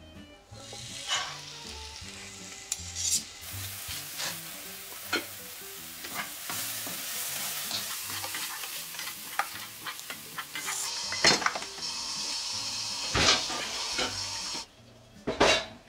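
Chopped kimchi sizzling as it is stir-fried in a nonstick frying pan, a wooden spoon scraping and tapping against the pan. The sizzle stops shortly before the end, followed by a couple of sharp knocks.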